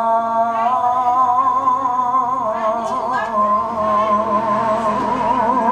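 A male Qur'an reciter (qari) sings one long drawn-out vowel in melodic tilawah style into a handheld microphone. The pitch wavers through ornamental turns and steps down about halfway through.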